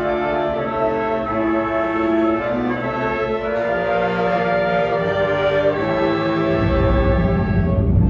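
High school concert band playing full, sustained brass and woodwind chords, with low drums swelling underneath near the end.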